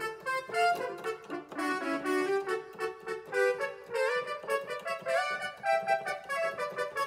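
Roland XP-10 synthesizer playing a trumpet-like brass patch: a melody of short, pitched notes with a few pitch bends.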